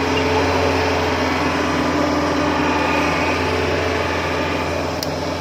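Kubota DC70 combine harvester's diesel engine running steadily as the machine crawls forward on its tracks.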